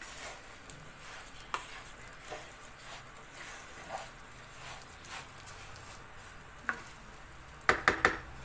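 Bulgur and toasted vermicelli being stirred in hot olive oil in a pot: a faint sizzle with occasional soft scrapes of the spoon, then a quick cluster of sharp clinks of the spoon against the pot near the end.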